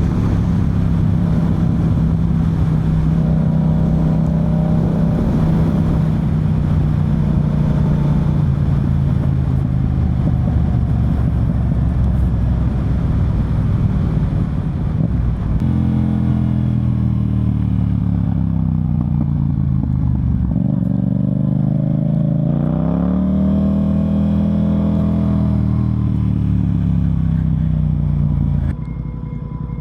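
Yamaha MT-07's parallel-twin engine through an Akrapovic full exhaust system, heard while riding. It holds steady revs for about fifteen seconds, then the revs fall away and climb again as the bike slows and accelerates, and near the end the engine sound drops away.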